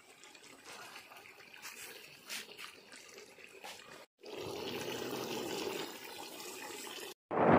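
A pot of chicken curry bubbling and simmering, steady and liquid. It is faint at first, then louder after a cut about four seconds in.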